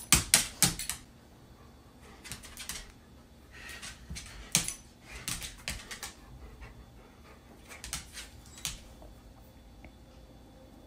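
Dog claws and paws clicking and tapping on a hard floor as an adult golden retriever pounces and paws at a puppy, in scattered flurries of sharp taps, loudest about the first second.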